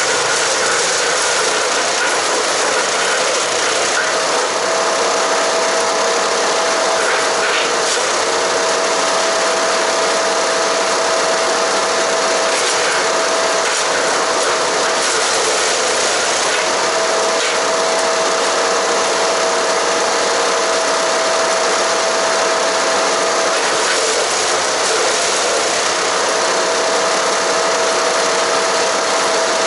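Haige 15-horsepower wood chipper running hard while chipping cedar and cypress branches: loud, steady engine and cutter noise with a steady whine that breaks off and returns a few times, and scattered cracks from the wood being cut.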